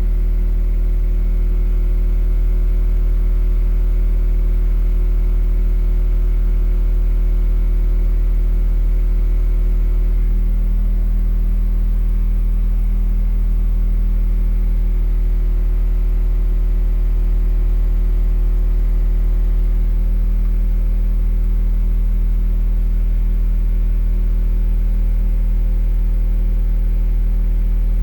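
Rockville Punisher subwoofer playing a continuous test tone a little over 40 Hz at high power, a loud, unchanging deep hum with a stack of steady overtones above it. It is being run for a one-minute power test of how long it holds up under heat.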